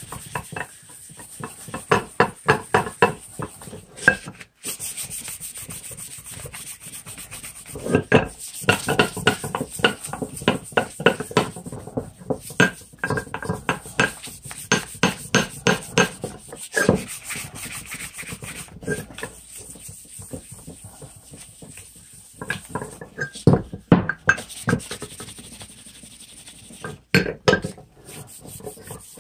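Steel hatchet head being hand-sanded with fine 1500-grit sandpaper: quick back-and-forth rubbing strokes, about four a second, in runs of a few seconds with short pauses between.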